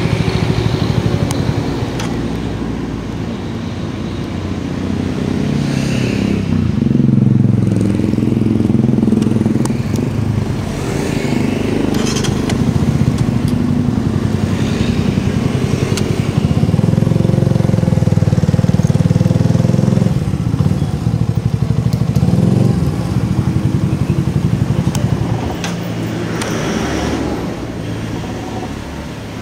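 Motorcycle engine running, its sound swelling and easing over several seconds, with a few brief clicks.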